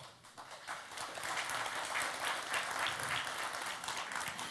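Audience applauding: the clapping starts about half a second in, builds over the next second, then holds steady.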